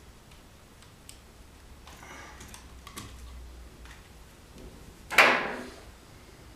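Light clicks and scraping from a wire stripper cutting and stripping a hookup wire, then a sudden loud clatter about five seconds in.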